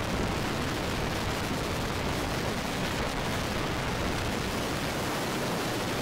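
Severe wind near a tornado, a steady rushing noise across all pitches with no let-up.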